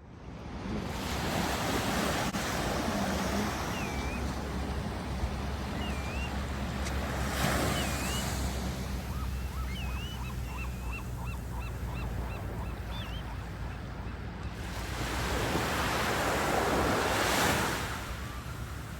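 Ocean surf breaking and washing ashore, swelling louder about seven seconds in and again around fifteen to seventeen seconds, with wind rumbling on the microphone. A bird gives a string of short chirping calls in the middle.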